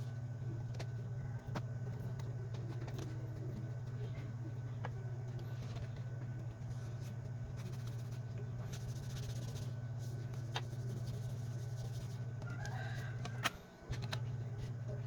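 Steady low hum with scattered small clicks and taps of repair work on a smartphone. A short faint call sounds near the end, and just after it the hum cuts out for a moment.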